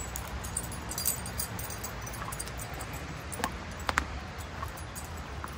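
Faint jingling of a dog's harness tags as the dog walks, with two sharp clicks a little past the middle, over a low steady rumble.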